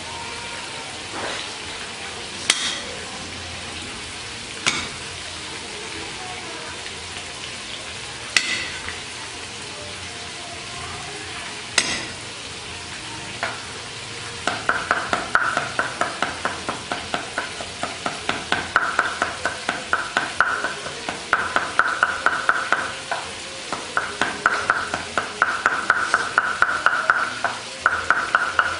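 A cleaver on a round wooden chopping block: a few separate knocks in the first half as garlic cloves are crushed under the blade, then, from about halfway through, fast rhythmic chopping with a ringing note from the blade as the garlic is minced.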